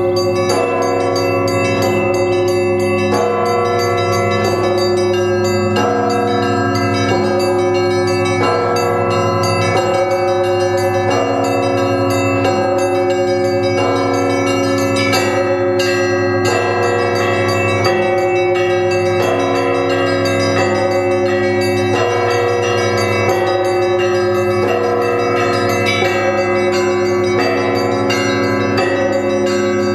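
Russian Orthodox monastery church bells of many pitches rung together in a continuous peal (zvon). New strokes come in a steady repeating rhythm about once a second, and the tones ring on over one another.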